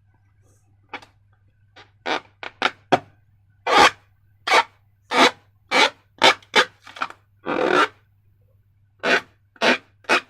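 Slime and latex balloons being handled: a series of short, irregular rubbing sounds, about fifteen in all, some briefly longer than others.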